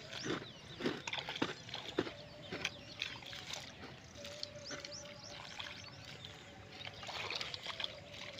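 A hoe blade chopping into wet clay soil, strikes coming about twice a second, then thinning out after about four seconds. Birds chirp throughout.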